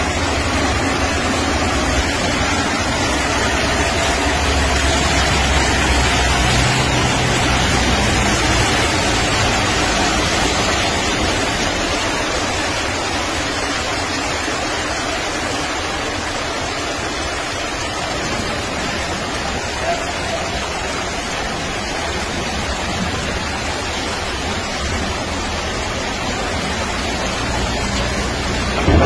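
Floodwater rushing steadily through a street, with car engines running low underneath as vehicles drive through the water.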